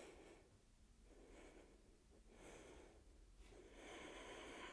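Near silence with a woman's faint breathing: a few soft breaths, the two longest in the second half, as she holds a twisting lunge.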